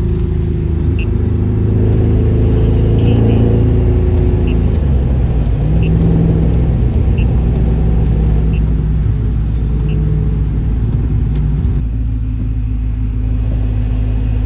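A 1994 BMW E34 530i's V8 engine running under load, its pitch rising and falling as it is driven, with a faint tick about every second and a half. About twelve seconds in it settles to a steadier, lower note.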